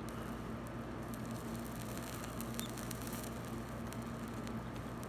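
Quiet room tone: a steady low electrical hum with faint scattered ticks.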